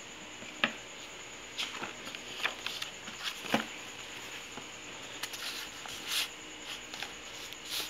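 Small clicks and taps from a plastic ruler and a picture book being handled on a table, with a brief rustle of a page being turned about six seconds in.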